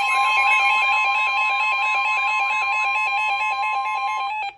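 Emergency Alert System alarm tones announcing a severe thunderstorm warning: a steady two-pitch tone with a warbling tone and a fast alternating two-pitch beep layered over it. The higher steady tone drops out shortly before the end, and then all of it cuts off abruptly.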